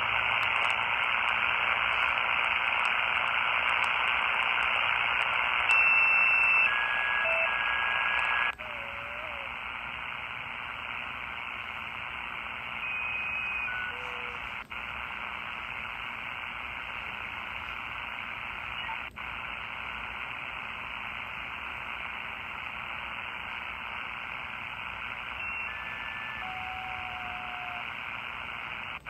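4732 mini shortwave radio hissing with static and no clear station, with short whistling tones coming and going: poor reception. After a brief cutout about eight seconds in, the hiss drops in level, and it cuts out briefly twice more.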